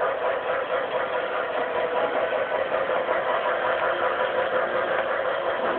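Small electric motor and gears of a battery-powered remote-control toy train whirring steadily as it runs.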